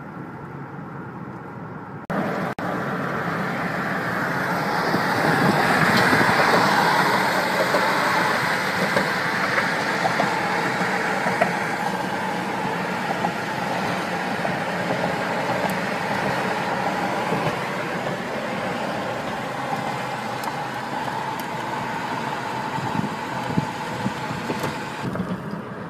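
Car driving along, with steady road and engine noise heard from inside the vehicle. It steps up abruptly about two seconds in and swells for a few seconds before settling.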